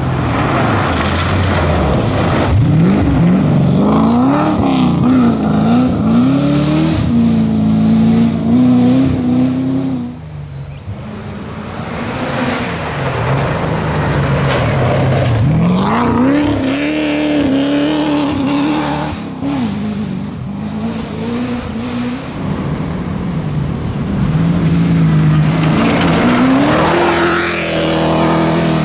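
V8 Holden Commodore rally car at full throttle on a gravel stage, the engine note climbing and dropping again and again through the gears, with the tyres sliding on loose gravel. Several separate passes, the sound falling away sharply about ten seconds in before the next run builds.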